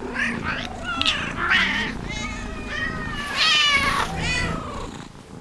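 Domestic cats meowing: a quick string of about eight meows of different pitches, one after another, the loudest and longest about three and a half seconds in.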